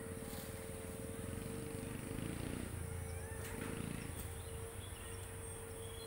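Outdoor forest ambience: a steady low rumble and one constant humming tone, with a few faint high chirps.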